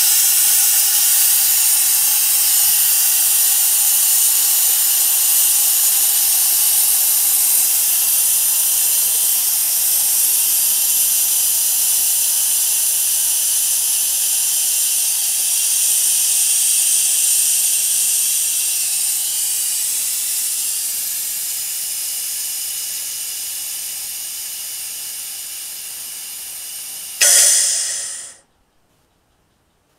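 Compressed air hissing out of a 1993 Craftsman 30-gallon air compressor as it is drained. The hiss slowly weakens as the pressure falls, with a brief louder burst near the end before it cuts off.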